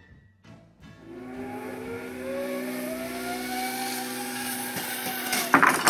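Zipline trolley pulley running along the cable as the glider frame is test-run: a whine that rises in pitch as it picks up speed and then holds, over a steady hum. A clatter of knocks comes near the end.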